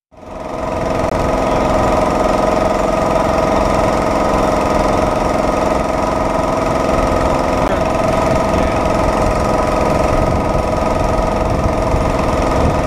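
Small engine of a homemade rail cart running steadily as the cart rolls along the rails, fading in over the first second.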